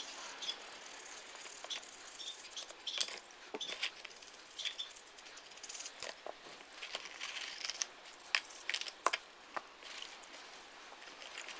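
Scattered light clicks, taps and scrapes of small metal wheel-hub parts being handled and cleaned, with one sharper knock about six seconds in.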